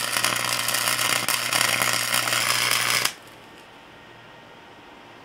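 Wire-feed welder laying a tack weld on an exhaust pipe flange: the arc's steady, loud crackle with a low hum under it, cutting off suddenly about three seconds in, leaving faint room tone.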